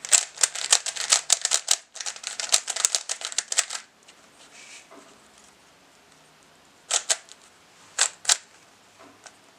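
Plastic 3x3 Rubik's Cube being turned, with its layers clicking rapidly for about four seconds. A few single clicks follow near the end.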